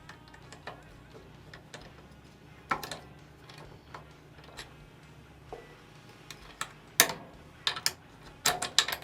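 Scattered sharp metallic clicks and taps of small rifle parts and tools being handled while the trigger group and safety selector are refitted, with a louder click about seven seconds in and a quick cluster near the end.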